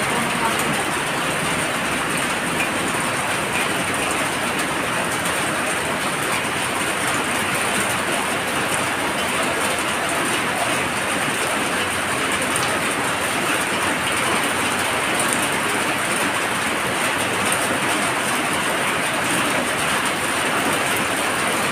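Heavy rain pouring down steadily onto a flooded street: a dense, even hiss that does not let up.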